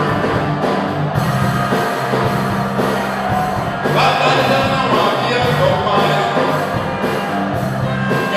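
A live band playing a rock-style song, with a singer's voice over drums and a steady bass line.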